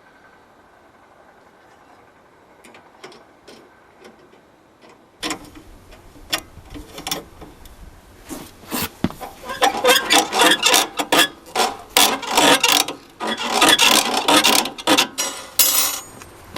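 A fast, uneven run of sharp metallic clicks and rasps from hand tools at work on the car, such as a jack being cranked or lug nuts being loosened with a wrench. It starts about five seconds in and grows denser and louder after about eight seconds.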